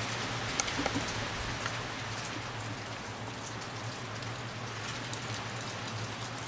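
Steady rain falling, with a few faint clicks over the top.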